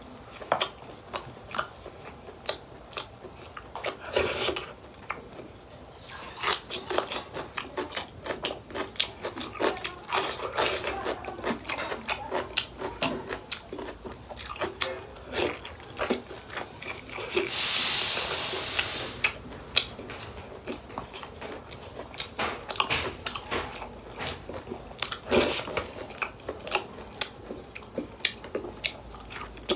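Close-up chewing of grilled pork eaten by hand: many wet mouth clicks and crunching bites. Some 18 seconds in there is a loud hiss lasting about two seconds.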